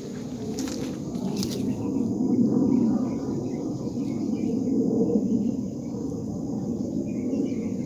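Low rumbling drone from the sky, swelling and easing twice, which is typical of a jet aircraft or drone passing at a distance; the uploader takes it for a fighter jet or drone, not an earthquake sign. Insects trill faintly underneath.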